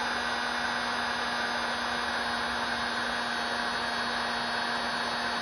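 Furno 750 heat gun running steadily at full power: a constant blower whir with a steady low hum.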